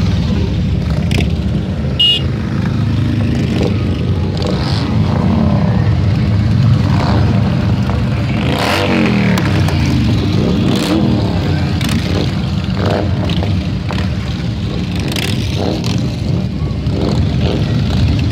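A procession of heavy touring motorcycles riding past at low speed, their engines rumbling steadily. About nine seconds in, one engine's pitch slides down as it goes by.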